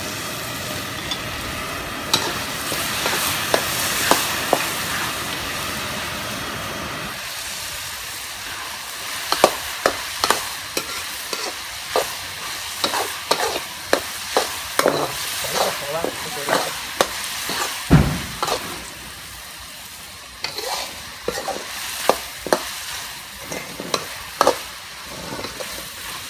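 Corn kernels and carrot sizzling in a wok over a high gas flame while the sauce boils down. From about seven seconds in, a metal ladle and spatula scrape and clink irregularly against the wok, with one dull thump partway through.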